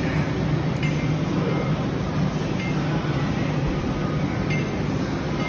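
Steady low rumbling background noise in a gym, with three faint metallic clicks about a second, two seconds and four and a half seconds in.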